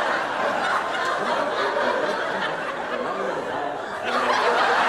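Studio audience laughing, with the laughter swelling again about four seconds in.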